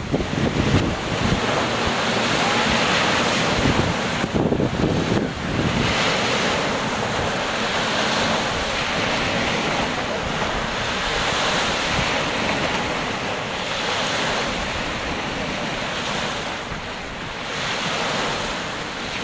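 Wind-driven lake waves breaking on a sandy shore and concrete boat ramp, surging and washing every few seconds. Wind gusts buffet the microphone, most strongly near the start and around four to five seconds in.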